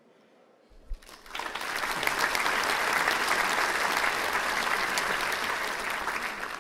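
Audience applauding, swelling up about a second in just after a single low thump.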